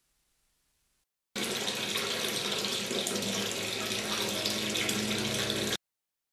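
Water jetting from the outlet of a float-free water level control valve into a partly filled clear tank, splashing and churning below the surface as the knob opens the valve to raise the level. The rush starts suddenly about a second in and cuts off suddenly near the end.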